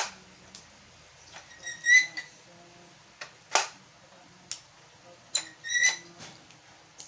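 Sharp clicks and knocks of a small plastic toy being handled, with two short high-pitched squeals about two and six seconds in.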